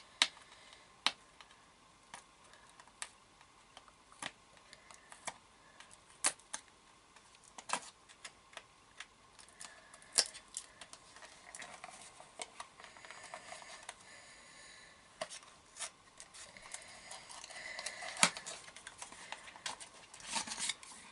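Hands handling small items and packaging: scattered light clicks and taps at irregular intervals, with soft rustling in the second half.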